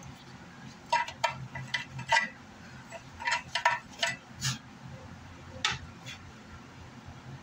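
A small hand tool clicking and scraping irregularly against the metal basket and spider of an 18-inch LASE woofer as glue is worked onto the spider, about a dozen sharp taps over a few seconds.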